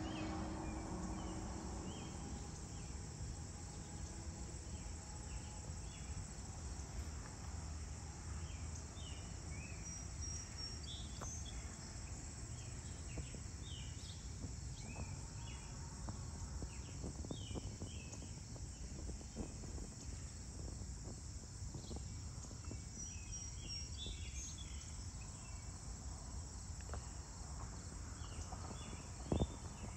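Steady high-pitched chorus of crickets and other insects in a late-summer field, over a low rumble, with scattered short chirps through the middle. A single sharp knock near the end.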